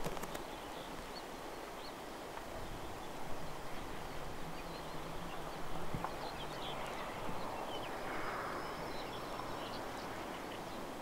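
Quiet outdoor ambience by the water: a steady hiss with faint scattered ticks, after a sharp click at the very start.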